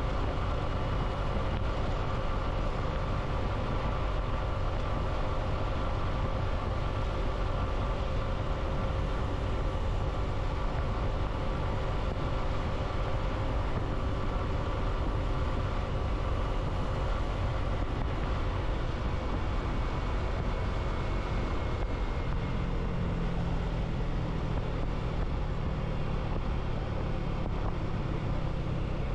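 On-board sound of a vehicle cruising at a steady speed: a continuous engine hum over wind and road rumble, with a lower hum joining in about three-quarters of the way through.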